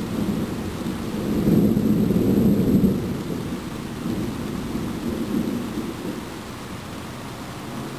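Rolling thunder rumbling deep and low, swelling about a second and a half in and then slowly dying away, with rain hissing steadily underneath.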